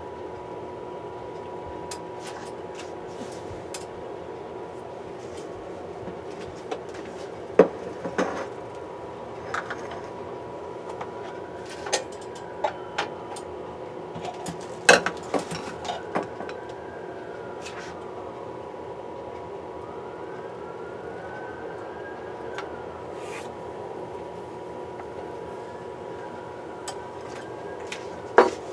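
A steady mechanical hum with several fixed tones, likely a kitchen appliance or fan, runs throughout. Scattered knocks and clicks of kitchen handling sound over it, with a sharper knock near the end as a whole tilapia is set into the oiled frying pan.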